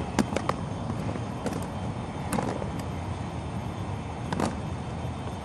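Steady low outdoor background noise with a few short, light clicks and taps, several of them near the start.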